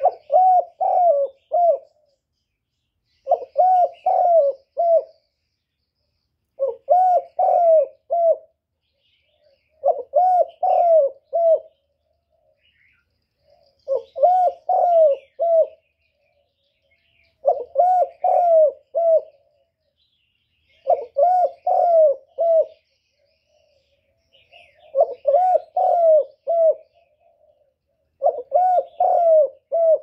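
Spotted dove cooing: a phrase of about four notes, repeated nine times at roughly three-and-a-half-second intervals.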